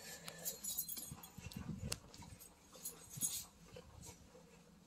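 Rustling and handling noise from a hand-held phone on the move, with a sharp click about two seconds in.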